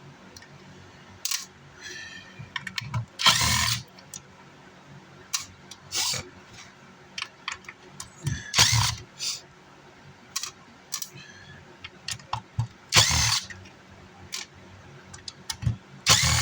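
Electric screwdriver run in about five short bursts every few seconds, backing out amplifier case screws, with small clicks and knocks of screws and metal parts between the bursts.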